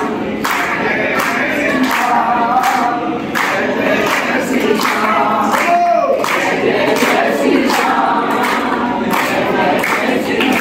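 A group of devotees singing a Hindu devotional bhajan together, led by a man's voice, with hand claps keeping a steady beat about twice a second.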